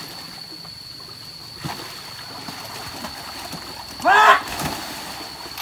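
Stream water running steadily over rocks around a working elephant handling logs, with a faint knock about two seconds in. About four seconds in, a short, loud shouted call that rises and falls in pitch, like a mahout's command to the elephant.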